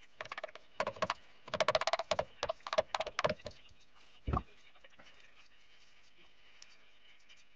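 A quick, uneven run of small clicks and rattles, then one dull knock about four seconds in: hands handling and fitting parts on a homemade wooden rose engine, around its drive pulley.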